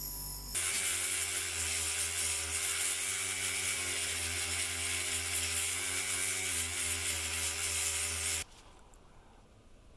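For the first half second, a bench-mounted wire wheel spinning with a small steel part held to it. Then a handheld rotary tool with a small wheel scrubbing an oval brass nameplate: a steady hiss over the motor's tone. It cuts off suddenly about eight and a half seconds in.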